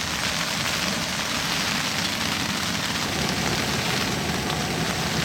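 Steady hiss of rain on a tent, with a Jetboil camp stove burner running.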